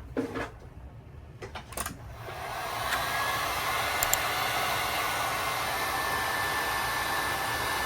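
A few light handling clicks, then a hot-air blower switches on about two seconds in, builds up and runs steadily, heating the phone's display to soften the adhesive holding the proximity sensor.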